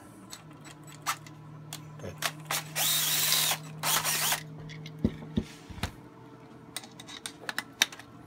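Hand-tool work on a metal red dot mount as it is pushed further into a pistol slide: scattered sharp clicks and knocks, two short loud rasping bursts about three and four seconds in, and a low steady hum for the first five seconds.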